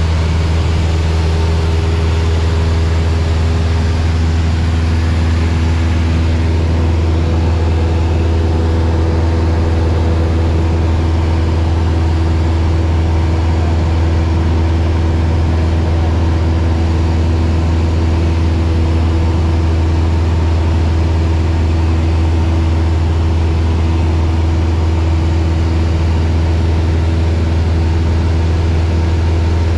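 Cessna light aircraft's piston engine and propeller droning steadily, heard from inside the cabin in flight.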